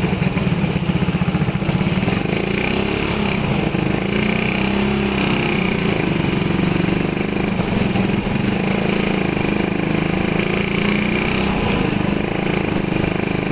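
Suzuki motorcycle's small engine running steadily as the bike moves off from a stop and rides along a street.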